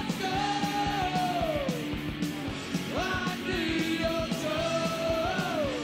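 Background rock music with a steady beat and a melody line of held notes that slide down at their ends.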